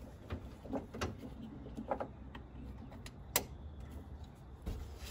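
Light clicks and knocks from hands working the plastic ignition leads, distributor cap and coil of an air-cooled VW engine, with one sharper click a little past three seconds in.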